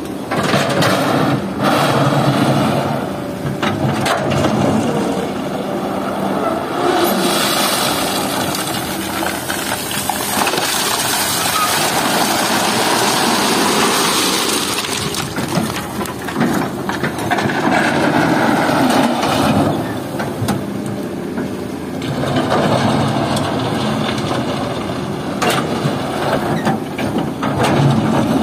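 Hydraulic excavator's diesel engine running and revving as the arm digs and swings, with a long rushing clatter partway through as a bucketful of river stones and gravel pours into a dump truck's steel bed, and scattered clanks of the bucket.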